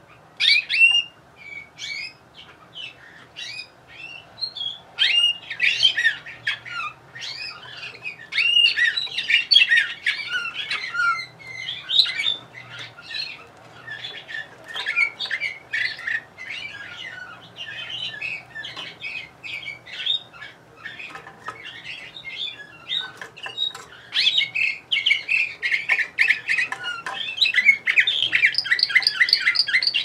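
Domestic canary singing: a long run of varied quick whistled notes and trills, thinning out in the middle and building to a dense, fast trill near the end.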